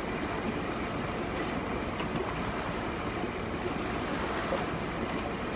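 Steady, even rush of water and air aboard a yacht moving across a calm sea.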